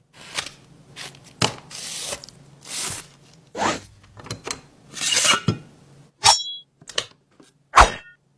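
Small screwdriver kit being handled: a run of short scraping and rubbing strokes, then three sharp clicks in the last couple of seconds, the last of them the loudest.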